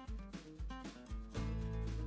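Background music with a bass line and strummed guitar, in a country or bluegrass style.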